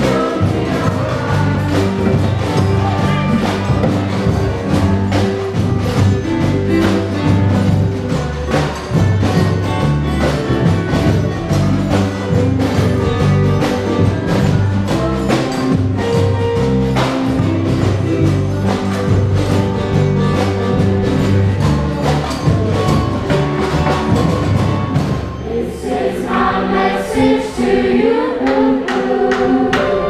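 Live band playing: a choir of young voices singing over strummed guitars and ukuleles and a steady beat from large samba-style carnival drums. Near the end the drumming drops back and the voices come forward.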